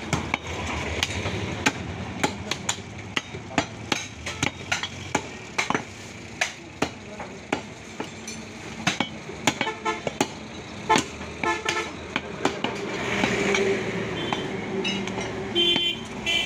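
A butcher's large knife knocking again and again on a wooden log chopping block while cutting beef, in sharp irregular strokes about one to three a second. Short horn toots sound twice, in the middle and near the end.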